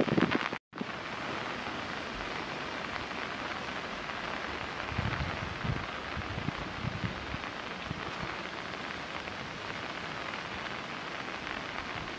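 Steady rain falling on leaves and the ground, an even hiss. The sound drops out briefly less than a second in, and there are a few soft low thumps in the middle.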